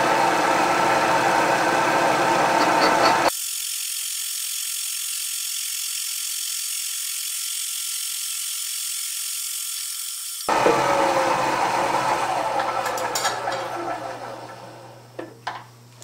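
Milling machine spindle running as a boring head cuts the relief bore in an old grinding arbor's housing. For several seconds in the middle the sound turns thin and high-pitched, as in sped-up footage. Then the sound fades away gradually, with a few sharp clicks near the end.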